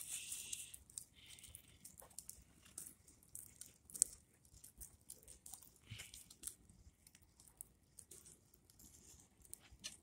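Fire burning a plastic Atari 2600 joystick: faint, irregular crackles and small pops, with a soft hiss in the first second and one louder pop about four seconds in.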